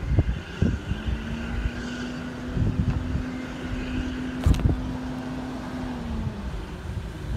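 Steam locomotive whistle sounding one long blast of about five seconds, pitch dipping as it ends, over wind buffeting the microphone and a sharp click partway through.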